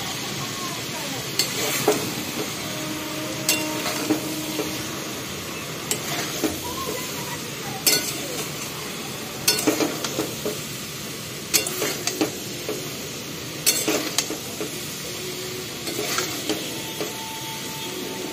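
A metal spatula stirs and scrapes chunks of jackfruit pickle around a steel kadai, clinking against the pan every couple of seconds over a steady sizzle of frying in mustard oil.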